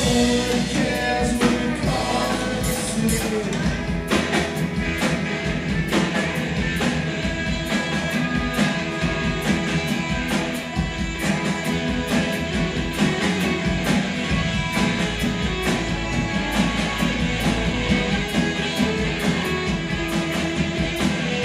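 Rock band playing live: strummed acoustic guitar, electric guitar, bass and drum kit with a steady beat.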